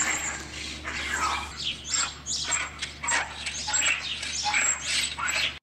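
A rapid run of short, sharp animal calls, about three a second, that cuts off abruptly at the end.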